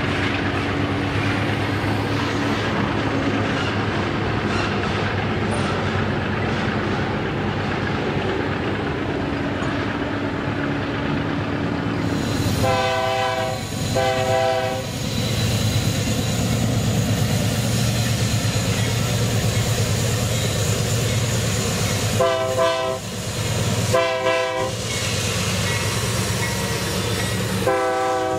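Freight train's diesel locomotive running with a steady engine rumble, sounding its air horn in five blasts: two of about a second each near the middle, two shorter ones some eight seconds later, and one more starting near the end.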